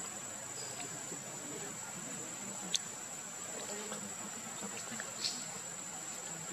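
Steady high-pitched drone of insects, with two short sharp clicks about three and five seconds in.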